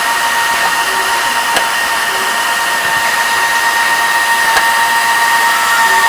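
MAB drilling and tapping machine running, a steady motor whine over an even rushing noise, with a few faint clicks.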